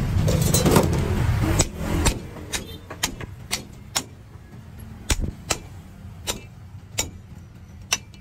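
A hammer striking the back of a cleaver to drive it through a roasted pork leg: a string of sharp metal knocks, roughly two a second but unevenly spaced, starting about a second and a half in. Before the knocks, a loud low rumble like passing traffic.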